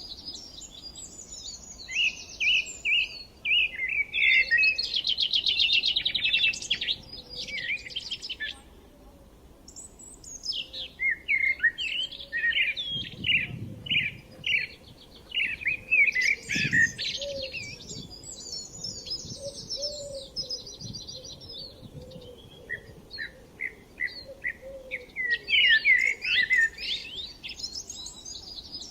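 Several songbirds singing and chirping over one another, with fast trills and repeated short notes, easing into a brief lull about a third of the way through before picking up again.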